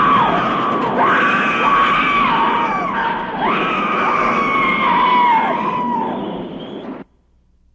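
High-pitched screaming: about four long screams, each swooping up, holding and sliding down, over a steady noise underneath, ending abruptly about seven seconds in.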